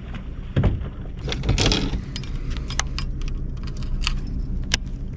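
Scattered sharp metallic clicks and rattles of fishing tackle being handled on a boat deck, about a dozen, with the loudest knocks about half a second and a second and a half in. A steady low rumble runs underneath.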